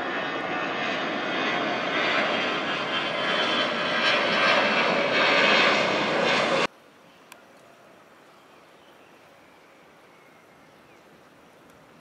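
Jet airliner's engines running loud and growing louder as the aircraft passes close, then cut off suddenly about six and a half seconds in. After that only a faint background remains, with one small click.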